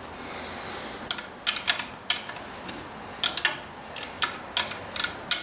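Ratchet wrench being worked to tighten a bolt: short, irregular runs of sharp metallic clicks, two to four at a time.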